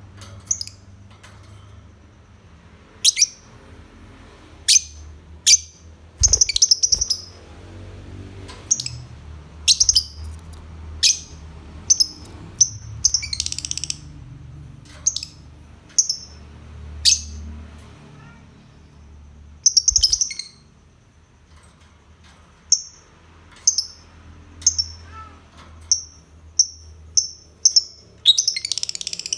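Lovebird calling in sharp, high, single chirps about once a second, broken by a few short chattering runs.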